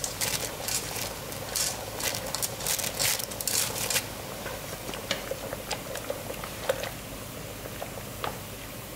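Boiling water in a wok bubbling and splashing as thin dried wheat noodles go in. It is busiest for about the first four seconds, then settles to a steady boil with a few light taps as chopsticks stir the noodles.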